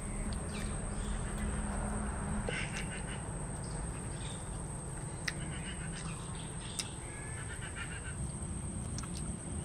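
Outdoor ambience: a steady low background rumble, with birds giving short calls now and then and a couple of small clicks.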